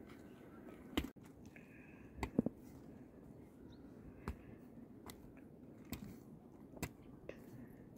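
Mattock blade chopping into soil, short crunchy strikes at an uneven pace, about seven in all, with a louder quick double strike about two and a half seconds in.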